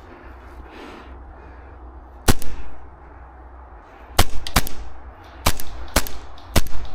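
Airsoft gun shots: sharp cracks fired singly at irregular intervals, a quick double shot about two seconds in, then about half a dozen more from about four seconds in.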